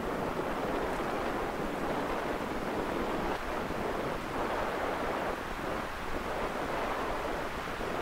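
Strong wind blowing, a steady rushing noise.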